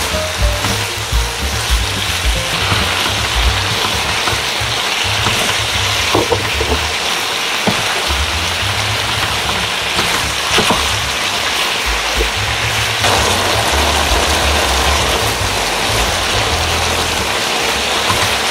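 Spicy chili-sauced pork, cabbage and green chilies sizzling in a frying pan as they are stir-fried and turned with a wooden spatula, a steady hiss, under background music.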